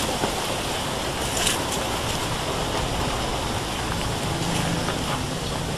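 Steady rushing noise of wind buffeting the microphone, unsettled and rumbling at the low end.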